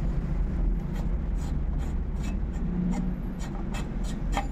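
Hand rivnut tool being turned to install a rivet nut in a bicycle frame's bottle cage mount: a string of small, irregular metallic ticks and rasps from the threaded mandrel and knob, over a steady low hum.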